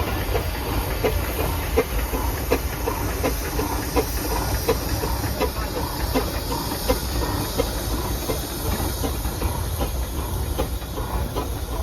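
Burrell steam engine running steadily, its steam hissing over a low rumble, with a regular light knocking about three times a second.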